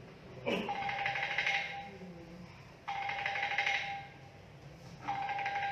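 Phone ringing: three buzzy electronic rings over a steady tone, each about a second long, repeating about every two and a half seconds.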